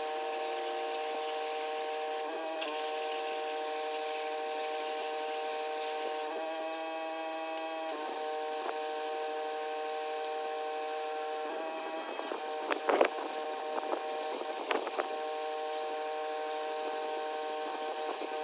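A pressure washer's motor running steadily with a constant whine. A few knocks and rattles come through about twelve to fifteen seconds in.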